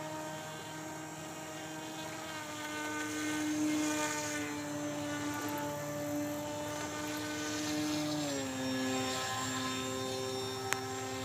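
Radio-controlled model airboat's motor and air propeller running with a steady buzzing whine. The pitch drops a step about eight seconds in as the throttle is eased, and falls again at the very end. A single sharp click sounds near the end.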